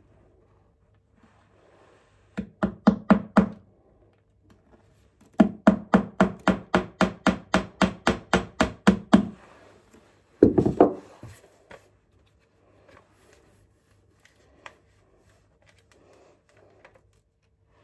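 Hammer tapping a nail into a wall to hang a picture. A quick run of about seven taps, then after a pause a steady run of about eighteen taps, four to five a second. A single heavier knock follows about two-thirds of the way through.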